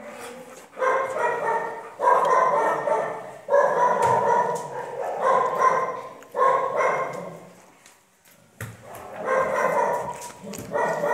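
A dog giving a run of about seven drawn-out, whining yowls, each about a second long, at a steady pitch with short pauses between them.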